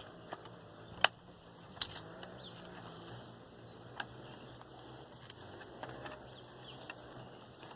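A few sharp metallic clicks and taps as tailgate lock and latch parts of a 1997 Ford F-150 are handled and fitted into the tailgate, the loudest click about a second in, over a faint steady hum.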